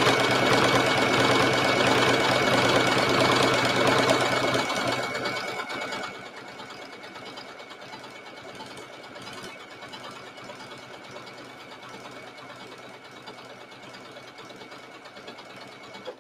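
Janome Skyline S7 domestic sewing machine stitching through leather, running fast for about five seconds, then slower and quieter, with a steady motor whine throughout, until it stops near the end.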